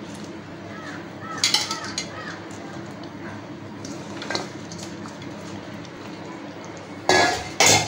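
A spatula scraping and clattering against a pan as crumbled fried chana dal vadas are stirred into curry gravy, over a steady low hiss. There are sharp clinks about a second and a half in and a louder clatter near the end.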